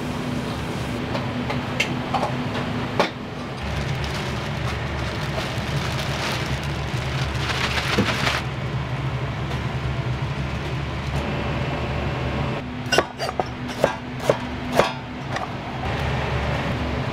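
Restaurant kitchen with gas wok burners and extractor fan running as a steady rumble with a low hum. A hiss swells about six seconds in and fades two seconds later. A quick run of sharp clanks comes near the end.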